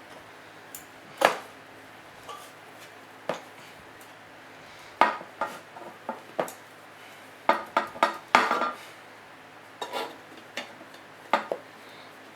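Metal clinking and scraping as a tool works at a sealed steel surplus ammunition can ('spam can') to get it open: irregular sharp clinks with brief ringing, coming in clusters with pauses between.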